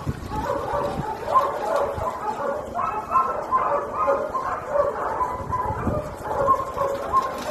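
Several dogs yipping and whining, with many short high calls overlapping one another in quick succession.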